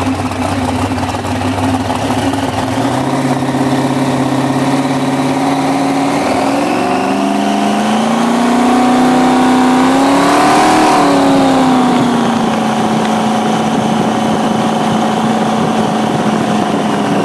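Jet boat's inboard engine with open exhaust headers running steadily, then revving up about six seconds in, its pitch climbing to a peak a few seconds later before easing back to a steady cruising note as the boat pulls away under way.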